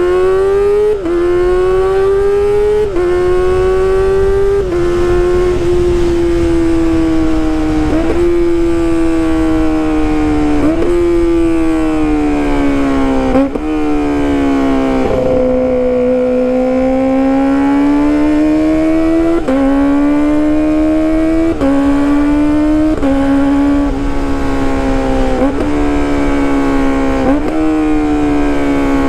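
Kawasaki ZX-25RR's 250 cc inline-four running hard through a loud aftermarket exhaust while ridden, its note climbing and sagging with the throttle. Quick dips in pitch every second or two mark gear changes.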